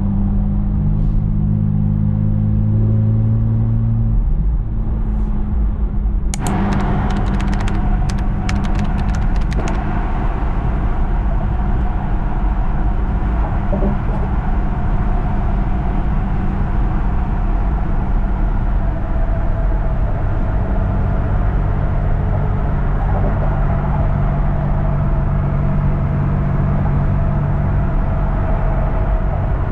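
Porsche 718 Boxster GTS 4.0 naturally aspirated flat-six running at a steady cruise, with road noise. About six seconds in, the noise grows brighter, with a few seconds of clicking.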